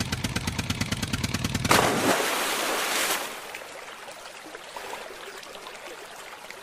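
A fast, even rattle, then a plastic toy tractor and trailer splashing into a muddy pond about two seconds in. The splash is followed by churning water that fades to faint bubbling.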